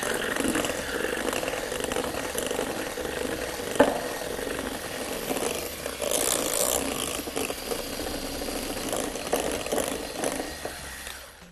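Handheld electric mixer running steadily, its beaters creaming soft butter and powdered sugar in a glass bowl, with a single sharp click about four seconds in.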